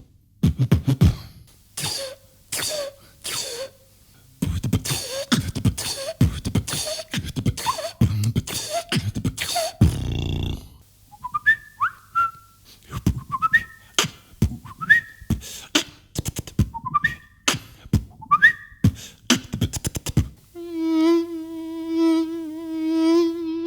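Vocal beatboxing by one performer: quick mouth-made kick, snare and click beats for about ten seconds. Then short rising whistled chirps come in over sparser beats. Near the end the beat stops for a steady held hum.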